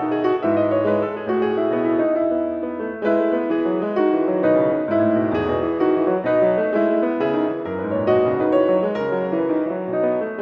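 Steinway & Sons grand piano played solo: a steady flow of notes in the middle register over lower bass notes.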